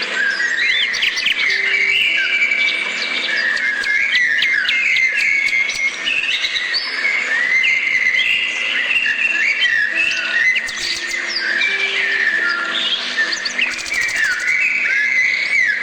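A dense chorus of many birds chirping and singing at once: overlapping short, quick chirps and pitch glides with no pause, over a few faint, low, held notes.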